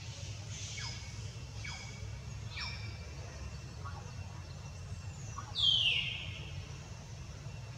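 A few short high-pitched animal calls, each falling quickly in pitch, with a louder half-second squeal near the end. A steady low rumble runs underneath.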